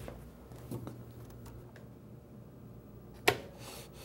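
Faint taps and clicks of a bar clamp and a wooden fence strip being readjusted on a tablesaw top, with one sharp knock about three seconds in.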